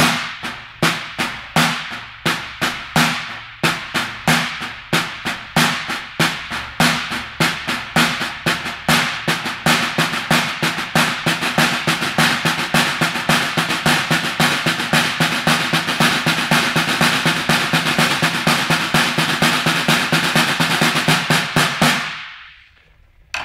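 Snare drum played caixa-style with two wooden sticks: a samba-reggae pattern of alternating right and left strokes with the right hand accented. The strokes start at about three a second, speed up to about six a second, and stop suddenly shortly before the end.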